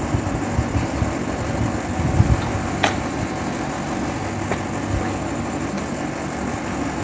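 Steady low mechanical hum, like an idling engine, with one sharp click a little under three seconds in.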